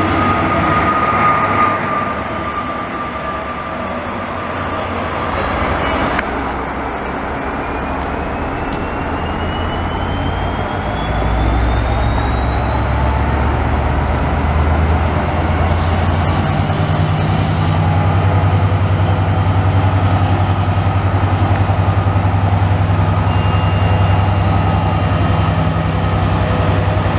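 Israel Railways train at a station: a red double-deck passenger train running past at first, then a locomotive's engine humming steadily, with a thin whine that rises slowly over several seconds in the middle.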